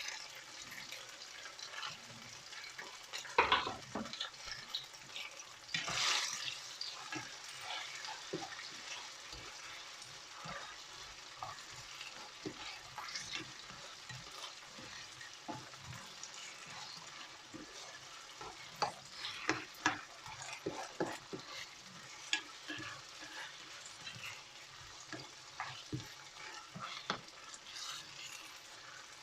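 Chopped red and green peppers frying with onion in oil in a pan, a steady faint sizzle under the frequent clicks and scrapes of a utensil stirring them, with a louder knock or scrape about 3.5 and 6 seconds in.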